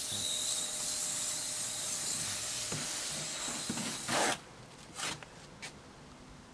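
A steady hiss that cuts off abruptly about four seconds in, then a mortar hoe scraping through wet stone-veneer mortar in a plastic wheelbarrow: three strokes, the first the loudest.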